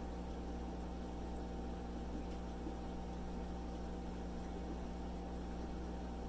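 Aquarium air pumps running with a steady electric hum over an even hiss.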